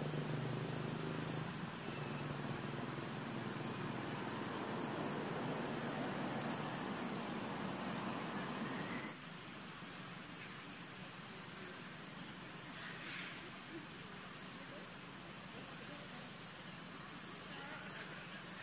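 Steady, high-pitched chorus of insects trilling in the vegetation. A rougher hiss lies under it for the first half and stops abruptly about nine seconds in.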